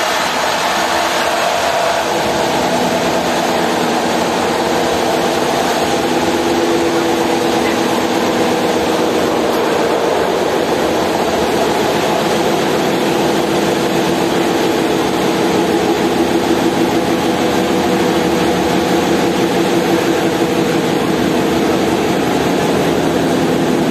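Passenger train running steadily, heard from on board: continuous rolling noise with a wavering hum.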